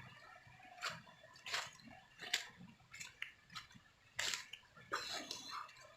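Footsteps on forest-floor leaf litter, one short rustling step about every 0.7 s while walking.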